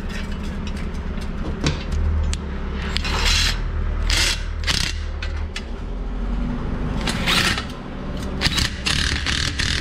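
Cordless impact wrench running in about six short bursts on a nut, over a steady low hum.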